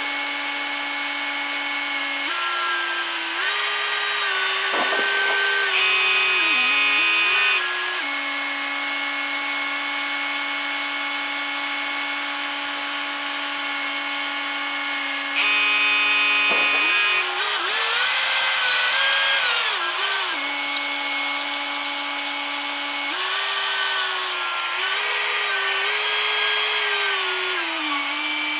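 Truck-mounted crane running with a steady machine whine that rises in pitch three times for several seconds as it is throttled up to hoist and swing a roof truss, with a brief higher whine twice.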